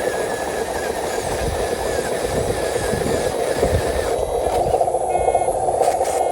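Radio-controlled truck's electric motor and gearbox running steadily, with a thin high whine that stops about four seconds in. Short repeated beeps come near the end.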